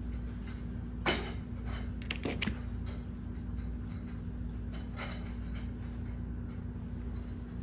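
Steady low hum with one steady tone under it, and a few short scraping clicks from a grooming comb and hands working in a dog's coat: one about a second in, two close together around two and a half seconds, and one about five seconds in.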